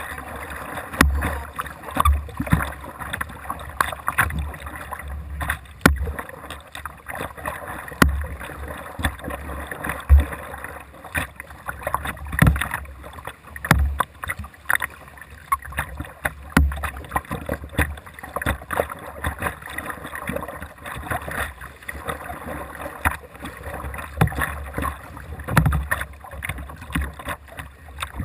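Kayak paddle strokes on a Jackson Dynamic Duo whitewater kayak: the blades splash in and out of the water on alternate sides, a stroke every second or two, over a steady wash of water along the hull. Many strokes carry a low thump through the boat.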